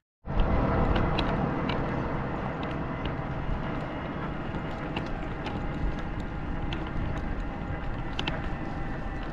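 Bicycle towing a dog trailer rolling along a road: a steady rumble of tyres with wind on the microphone and light rattling clicks. It starts abruptly a moment in.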